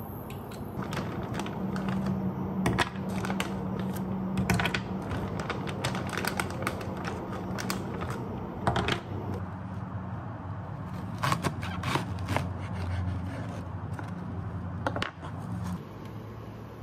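Kitchen food-prep handling sounds: plastic bags rustling and crinkling, with scattered sharp clicks and knocks of items being set down. A low steady hum runs underneath and stops shortly before the end.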